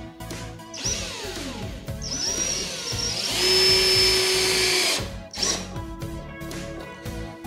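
Power drill driving a screw into a 2x2 wooden cleat: the motor speeds up and slows in pitch for a couple of seconds, runs at a steady full-speed whine for about a second and a half, then stops about five seconds in.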